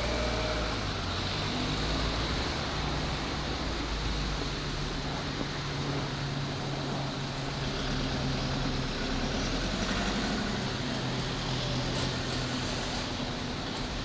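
Steady low rumble and hum of a distant E235-series electric train pulling slowly into a station, with a few low humming tones that step in pitch now and then.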